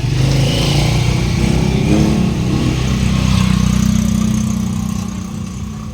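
An engine running steadily; its pitch steps up slightly about halfway through, then the sound eases off near the end.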